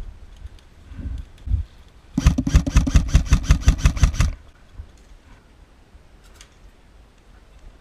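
Airsoft electric gun firing one full-auto burst of about two seconds: a fast, even string of shots, a little after a few dull thumps.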